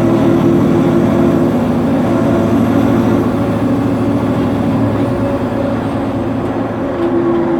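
Nova Bus LFS engine and drivetrain running while the bus drives, heard from inside the bus: a steady drone with a few held tones. It eases off a little after about four seconds and picks up again near the end.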